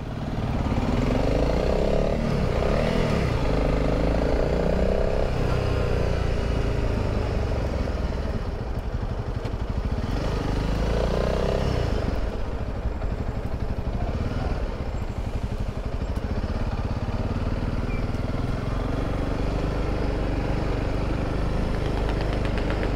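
Honda CRF300 Rally's single-cylinder engine running as the motorcycle rides at low speed. Its pitch rises and falls with the throttle a couple of times, around two seconds in and again around eleven seconds in.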